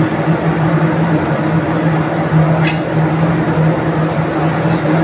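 Loud, steady engine-room drone from running marine diesel machinery: a constant low hum of unchanging pitch over a noise bed, with a single sharp click about two and a half seconds in.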